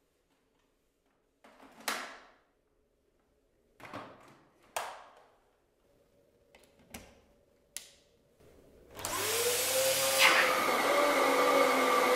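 A few sharp clicks and knocks from handling the machine and its plug. Then, about nine seconds in, the Dyson DC14 upright vacuum cleaner's motor starts: its whine rises in pitch and settles into a loud steady run.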